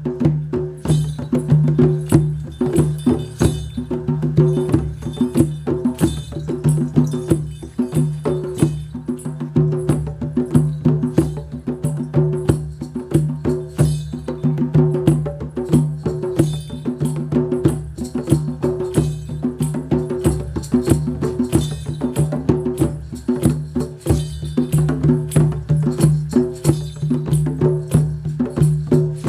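Music: a sustained low drone under fast, dense clicking and knocking percussion, with no clear pauses.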